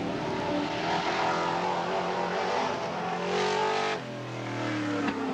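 Off-road race trucks' engines running hard at race speed, one revving up in pitch just before a sudden change about four seconds in. After that, lower engine notes fall away in pitch as a truck backs off.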